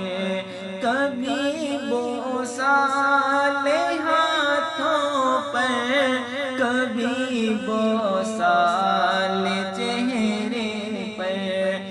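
Male voice singing a naat, an unaccompanied Urdu devotional chant, in a wavering, ornamented melody over a steady low drone.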